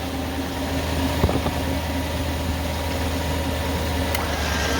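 Pickup truck engine idling steadily, kept running to feed the battery while the electric winch spools in its rope. A single sharp click sounds about a second in.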